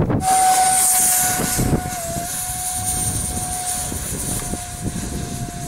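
Radio-controlled model F-35 jet flying overhead: a steady engine whine over a rushing hiss, loudest in the first second or so, its pitch dipping briefly about two seconds in.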